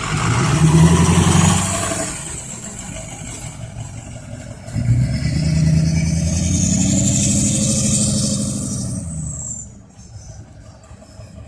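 Ford 6.0 Powerstroke V8 turbo-diesel being revved twice, a short rev at the start and a longer one a few seconds later, with the turbo whistling high, rising as it spools up and falling away as the engine drops back to idle near the end.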